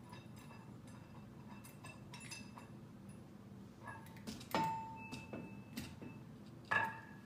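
Faint metallic clicks and clinks as a hex head screw with lock and flat washers is turned by hand into an IV stand's base. Two louder clinks come about four and a half seconds and about seven seconds in, the first ringing on briefly.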